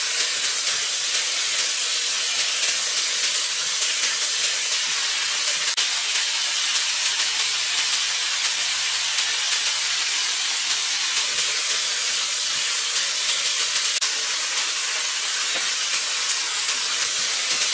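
Flat rice noodles, shrimp, bean sprouts and onion sizzling steadily in a hot wok as they stir-fry, with a light knock of a wooden spatula now and then.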